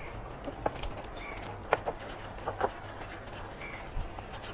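A few short sharp clicks and taps as a foam-covered car is hand-washed with a microfiber wash mitt around its open fuel filler flap, over a low steady hum. A faint short chirp is heard twice.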